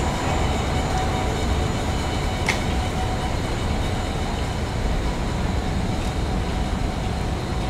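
Steady low rumble of city street noise with a faint steady hum over it, and a single short click about two and a half seconds in.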